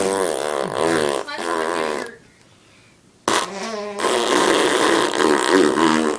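Fake fart noises squelched out against bare skin. A buzzing one with a wobbling pitch lasts about two seconds, then after a pause a second, rougher and denser one comes about four seconds in.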